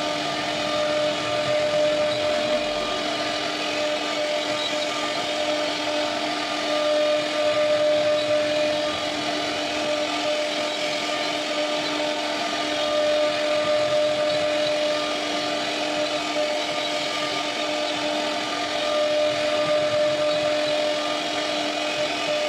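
CNC router spindle carving a wooden door panel: a steady high whine over the hiss of the bit cutting through wood, swelling slightly every five or six seconds.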